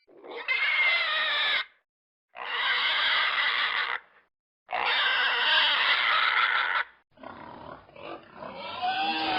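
An animal calling three times, each call one to two seconds long, noisy with a wavering pitch, with short silences between. A fainter, different sound with gliding tones starts near the end.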